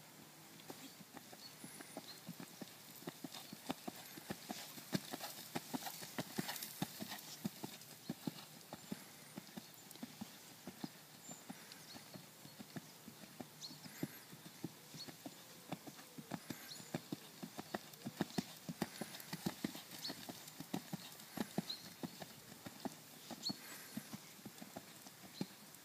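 Hoofbeats of a horse cantering on the sand footing of a riding arena: a continuous rhythm of dull thuds.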